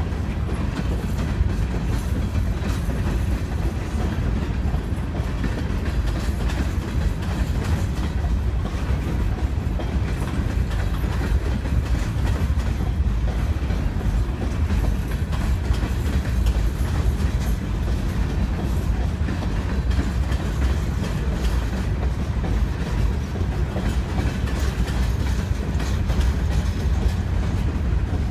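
Freight train's open-top hopper cars rolling past: a steady low rumble with wheels clicking over the rail joints.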